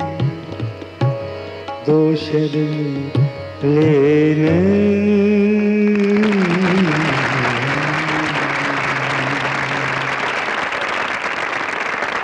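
Male vocalist singing a slow, ornamented line to harmonium and tabla, ending on a long held note about halfway through. Applause breaks out as the song ends and carries on while the harmonium's held tone fades away.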